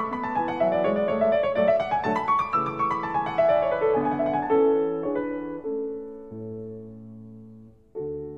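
Solo piano music: quick runs of notes falling and rising, then slower chords that die away, with a new chord struck near the end.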